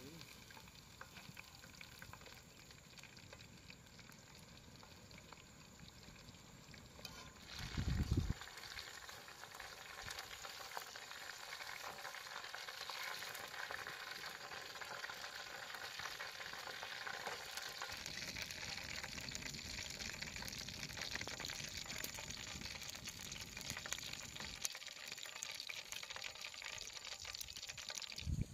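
Chicken kebabs frying in hot oil: a steady sizzling hiss. About eight seconds in there is a short low thump, and after it the sizzling grows louder.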